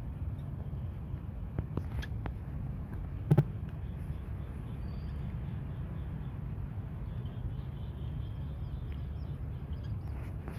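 Cats eating dry kibble, a few faint clicks over a steady low background rumble. A single short, sharp knock about three seconds in is the loudest sound.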